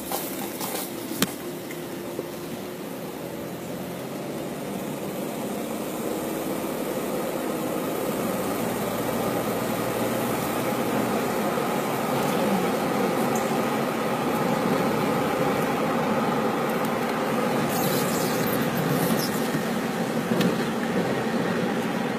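Car cabin noise while driving: steady road and engine noise, with the air conditioning running, getting gradually louder as the car picks up speed.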